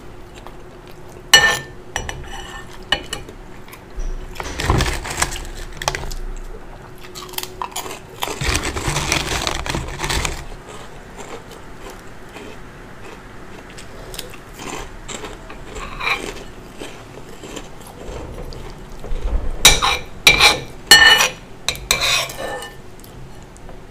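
Metal spoon and fork clinking and scraping against a ceramic bowl of rice while eating. Sharp clinks come in clusters near the start and again near the end, with longer, softer noises in between.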